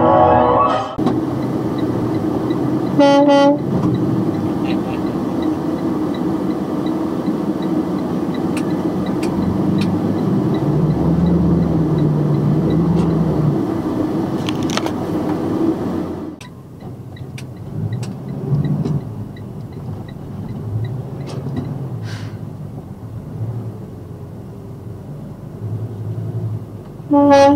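Box truck's horn sounding in short blasts: one ending about a second in, a brief toot about three seconds in, and another near the end. Between them the truck's engine and road noise run steadily, dropping quieter about sixteen seconds in, with a faint regular ticking.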